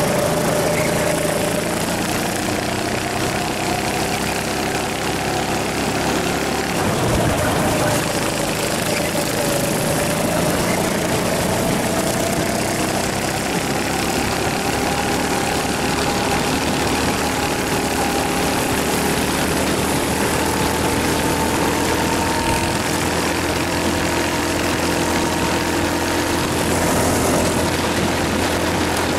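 Rental go-kart engine running hard, heard from on board the kart with wind rush around it. Its pitch dips about a quarter of the way through as the kart slows for a corner, then climbs slowly as it accelerates down a straight.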